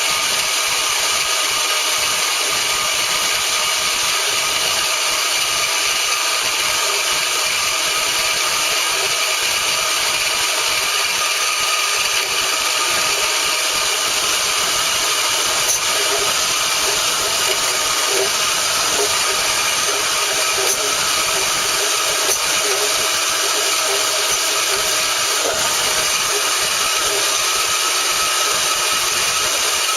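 Chicago Electric 10-amp portable band saw running steadily, its blade cutting through a piece of metal, a continuous motor and blade whine.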